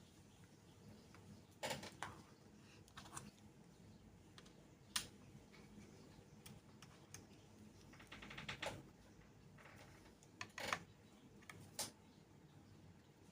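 Scattered light clicks and taps of small plastic and metal parts being handled while a mini PC's hard-drive cable is worked loose, with a short rapid rattle of clicks about eight and a half seconds in.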